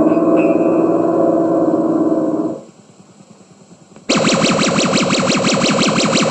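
Comic war-machine sound effects: a loud, low, buzzing many-toned drone that fades out about two and a half seconds in, then after a short pause a brighter, rapidly pulsing buzz that starts suddenly about four seconds in.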